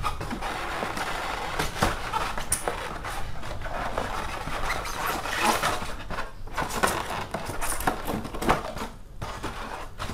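Plastic packaging rustling, with frequent clicks and knocks of hard plastic parts as drone propeller guards and landing legs are pulled from their box.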